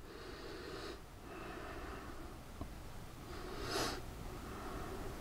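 A man breathing quietly through his nose: a few soft breaths about every second and a half, the loudest a little past halfway, with one faint click.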